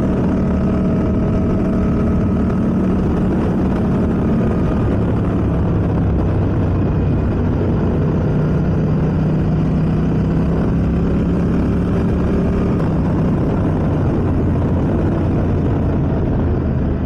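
Yamaha MT-07 motorcycle's parallel-twin engine running steadily at cruising speed, with wind rushing over the camera microphone.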